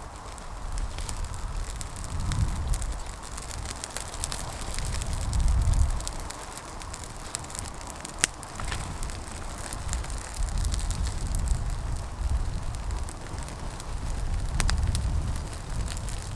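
Gusty wind buffeting the microphone in surges, with irregular sharp crackles and ticks over it and one sharper click about halfway through.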